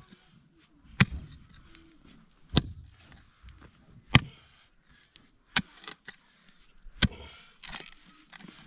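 A mattock striking stony soil five times, a sharp hit about every one and a half seconds, as a hole is dug.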